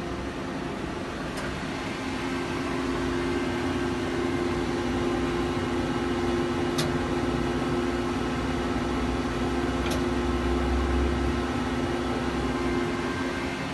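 Hitachi Seiki HT20SIII CNC lathe running with a steady machine hum of two held tones, plus a few faint clicks.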